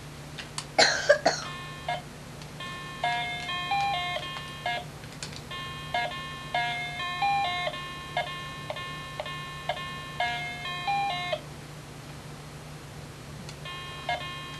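Battery-powered electronic toy game playing a beeping electronic melody of short stepped notes in phrases. The melody stops about eleven seconds in and starts again near the end. A brief loud crackle comes about a second in.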